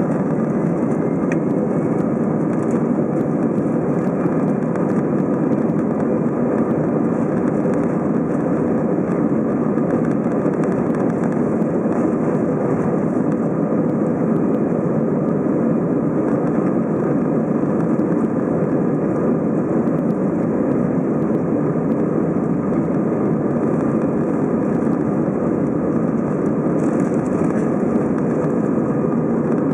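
Steady engine and rolling noise heard inside the cabin of an Airbus A320 as it moves along the runway for take-off.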